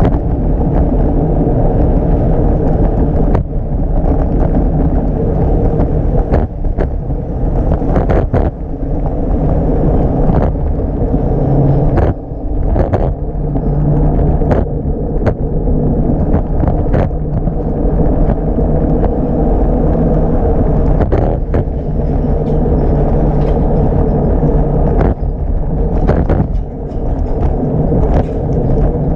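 Steady rumble of wind and road noise while riding a Segway Ninebot Max G30LP electric scooter, with scattered short knocks and rattles throughout.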